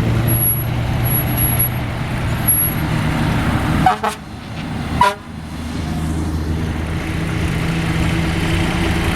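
Car engines running at low speed as vehicles drive off, with two short horn toots about four and five seconds in. A different engine's steady tone takes over after the toots.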